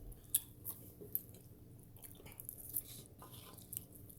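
Someone chewing a mouthful of instant ramen noodles close to the microphone: quiet wet chewing with scattered short smacks and clicks of the mouth.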